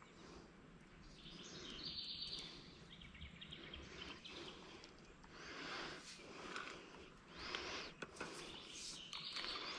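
Faint birdsong: a few short, rapid trills of high repeated notes over a low, steady outdoor background hiss.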